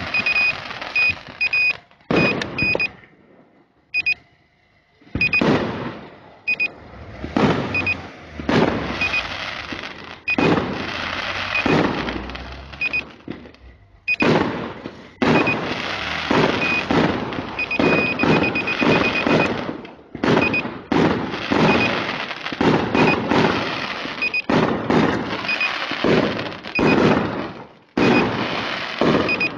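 Fireworks going off in rapid clusters of bangs and crackling, with a quieter gap about three to five seconds in. Short high beeps repeat at one steady pitch throughout.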